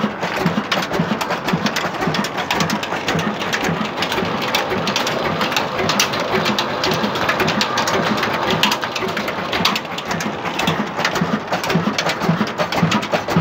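Old single-cylinder stationary diesel engine with heavy open flywheels, running steadily at slow speed with a fast, even knocking beat while it drives a bore-well water pump.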